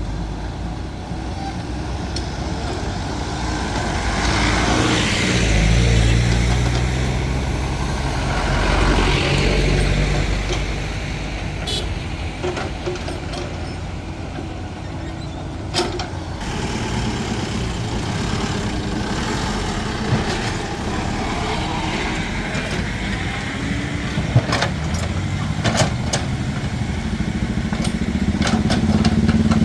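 JCB backhoe loader's diesel engine running under load, its revs rising and falling, with road vehicles passing and a few sharp metallic knocks.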